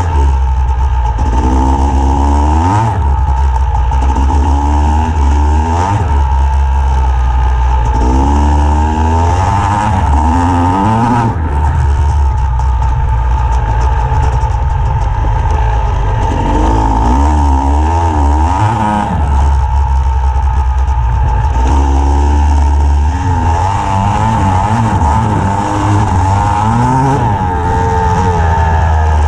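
Yamaha YZ250X two-stroke dirt bike engine running hard while riding, heard from on the bike, its pitch rising and falling over and over as the throttle is worked.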